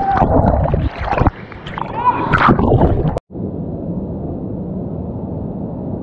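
Shouts and splashing water as people go down a natural rock water slide into a pool. After a sudden break about three seconds in, a steady, muffled rush of water.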